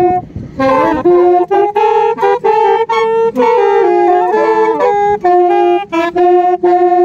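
Four saxophones and a clarinet playing a melody together in harmony, mixing held notes with quicker moving passages, with a short break about half a second in.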